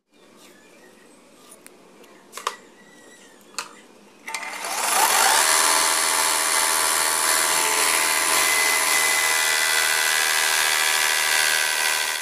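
A few light clicks, then about four seconds in a benchtop belt sander starts, rising quickly to a loud, steady run as a shaped piece of wood is held against the sanding belt.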